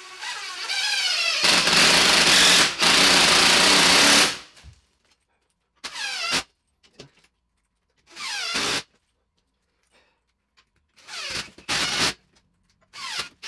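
DeWalt cordless drill-driver winding screws through a TV wall bracket into the wall. First comes a long run of about four seconds, its motor pitch rising as it gets going, with a brief break near the middle. Then come four or five short trigger bursts that spin down after each, nipping the screws up.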